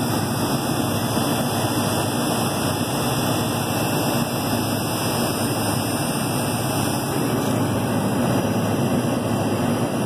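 A walk-in cooler's condensing unit running steadily while it is charged with R22, a system low on refrigerant, as an even mechanical rush with no breaks.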